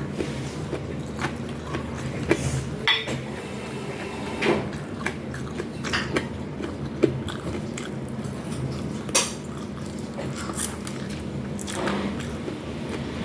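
Close-miked eating: a person biting and chewing food, with scattered clicks and clinks of utensils against dishes, over a steady low hum.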